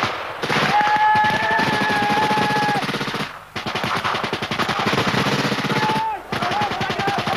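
Sustained automatic gunfire in three long bursts of about three seconds each, broken by short pauses, with a held high tone sounding over parts of the bursts.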